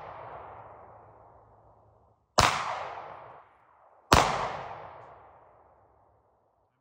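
Two pistol shots about a second and three-quarters apart, each followed by a long echo that dies away over about two seconds. The echo of a shot fired just before is still fading as the sounds begin.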